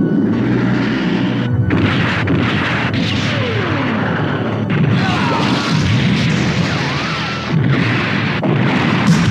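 Anime battle sound effects: a rapid montage of beam-weapon shots and explosions, in dense bursts that cut off abruptly every second or two, with whistling tones falling in pitch, over background music.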